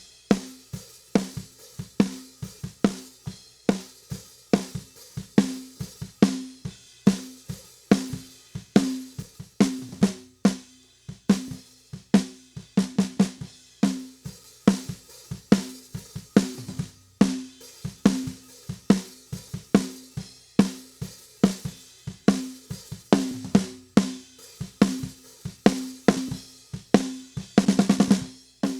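Drum kit recording playing a steady beat of snare and kick drum with hi-hat, with a quick snare roll near the end.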